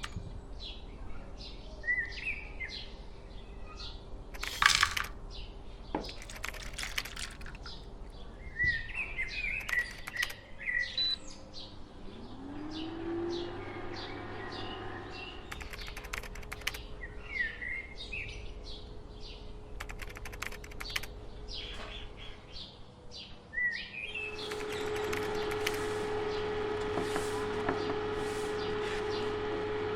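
Small birds chirping on and off, with scattered sharp clicks and knocks. Near the end a steady, pitched machine hum comes in and keeps going.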